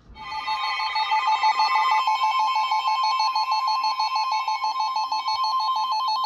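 Emergency alert attention tone: a loud, steady electronic alert tone with a fast warble. A second, higher tone layer sounds with it for about the first two seconds, then drops out.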